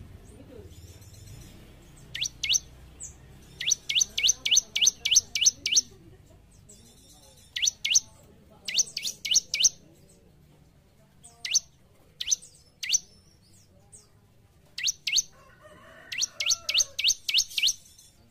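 Bar-winged prinia (ciblek) singing: quick runs of short, sharp, upward-sweeping whistled notes at about four to five a second, broken by single and paired notes.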